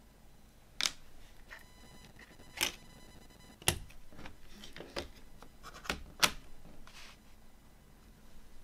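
Plastic CD jewel case being handled: about seven sharp, irregular clicks and snaps as the disc is pressed onto the tray's centre hub and the case is snapped shut.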